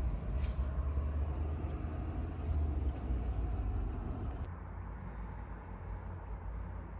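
Steady low rumble of city traffic, easing off about four and a half seconds in.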